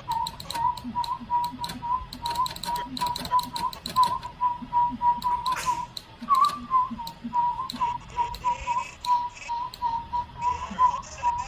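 A person whistling the same note over and over in short notes, about three a second, with many sharp clicks alongside.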